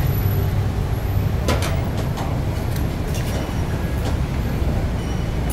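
Steady low rumble of city street traffic, with a few short sharp clinks about a second and a half in.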